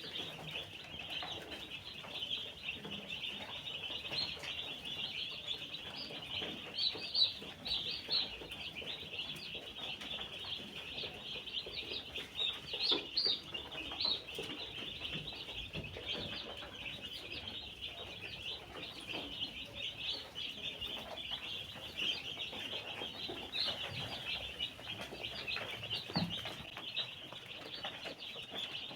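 A large brood of day-old chicks peeping together: a dense, continuous chorus of high-pitched cheeps, with a few louder peeps standing out now and then.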